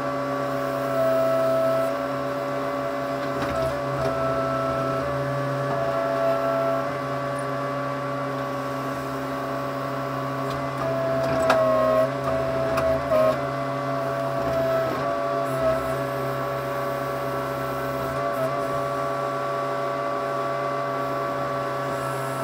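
Case 580C backhoe's engine running steadily, heard from inside the cab, with a whine of several steady tones over a low hum. About halfway through the pitch dips and wavers briefly, with a sharp clunk, as the boom is worked.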